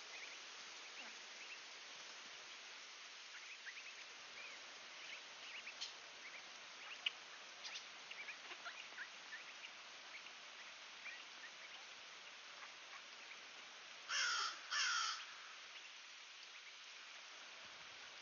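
Faint short high chirps scattered over a steady outdoor background, then two loud harsh bird calls in quick succession about three-quarters of the way in, each about half a second long and falling slightly in pitch.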